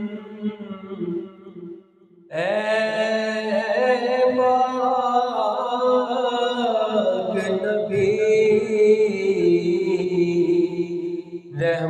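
A man singing an Urdu naat unaccompanied, in long drawn-out notes that slide and waver in pitch. One phrase dies away about two seconds in, and after a short pause a new, longer phrase begins. It breaks off briefly near the end.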